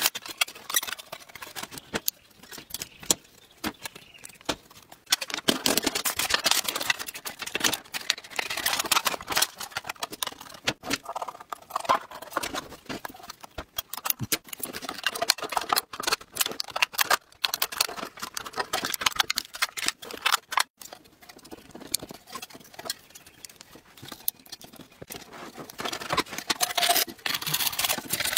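Thin aluminium drink-can sheet being snipped with scissors and bent and pressed by hand: irregular crinkling and crackling with many small clicks.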